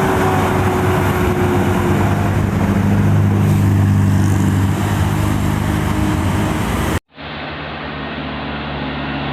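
Tour bus engine running steadily as the bus climbs past, with road noise. About seven seconds in the sound cuts off abruptly, and a quieter steady engine hum comes in and slowly grows louder.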